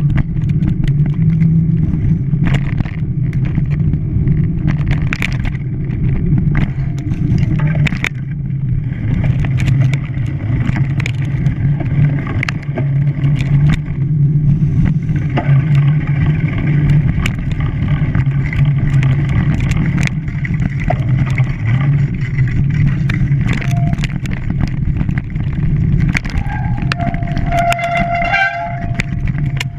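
A vehicle engine running steadily, with a horn sounding in the last few seconds.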